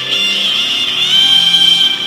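A short music clip played as a soundpad sound effect: held instrumental notes over a changing bass line.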